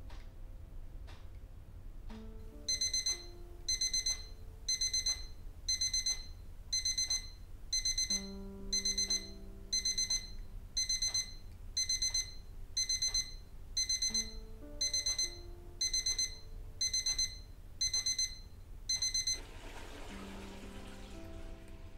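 Digital alarm clock going off: short clusters of rapid high-pitched beeps, about one cluster a second, starting a few seconds in and stopping about three seconds before the end. Soft ticks about once a second come before it, and a few sustained low music notes and a faint hiss near the end lie beneath it.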